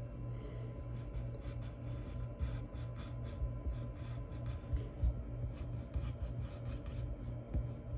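Wooden graphite pencil scratching on paper in short, irregular strokes, over a low steady hum.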